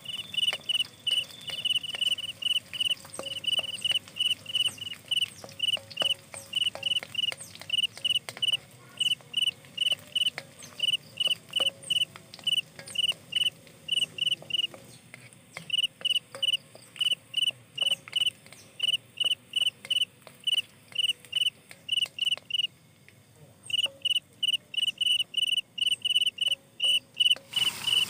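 A cricket chirping in a steady, even rhythm of about two short chirps a second, breaking off twice for about a second. Faint scattered clicks and crackles lie beneath.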